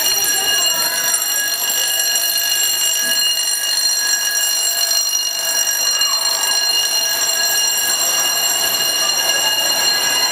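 Electric alarm ringing: a steady, high, buzzing tone with many overtones, holding one pitch.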